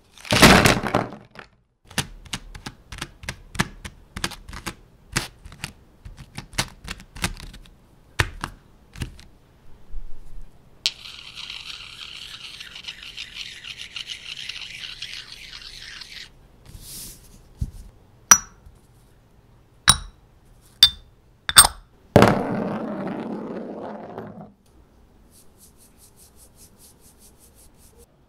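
Close-miked handling of ink-painting tools: a bundle of brushes drops onto a wooden table with a knock, followed by a run of light taps, a few seconds of hissy rubbing, four sharp clacks, a scrape, and faint rapid ticking near the end.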